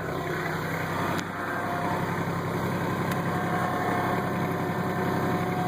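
Kubota diesel tractor engine running steadily, with a higher whine coming in about halfway through.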